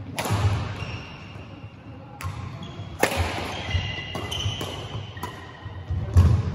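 Badminton rackets striking a shuttlecock several times in an echoing sports hall, each hit a sharp crack, with sneakers squeaking on the court floor and footfalls thudding between shots.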